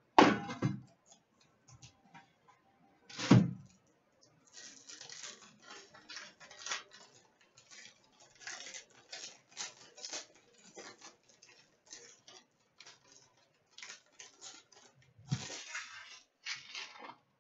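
Upper Deck Premier hockey card tin handled, with two sharp knocks at the start and about three seconds in, then the pack inside unwrapped: a long run of crinkling, crackling rustles as the wrapper is torn and pulled away from the cards.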